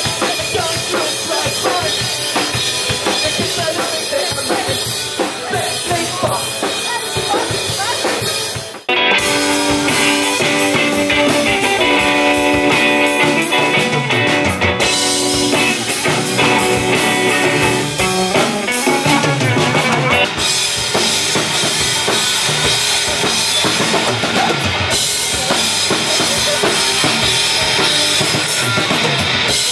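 Alternative rock music with a prominent drum kit, bass drum and snare driving a steady beat. About nine seconds in it cuts abruptly to a louder, cleaner-sounding passage with held notes over the drums.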